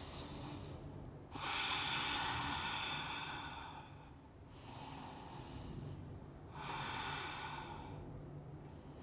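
A person breathing audibly and slowly while holding a yoga pose: three long breaths, the first the loudest.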